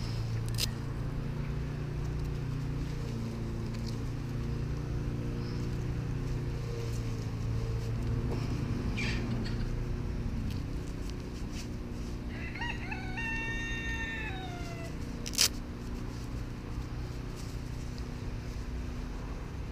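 A steady low hum throughout. About two-thirds of the way in, an animal calls once for about two seconds, a pitched call ending in a falling glide, and a single sharp click follows shortly after.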